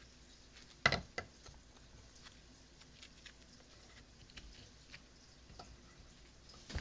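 Workbench handling noises: a sharp knock about a second in, a lighter one just after, then faint scattered clicks and taps as small wooden blocks are set into the jaws of a bench vise.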